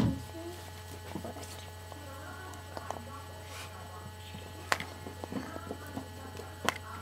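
Steady low electrical hum with faint background voices, and a few sharp clicks, the loudest two about two seconds apart near the end.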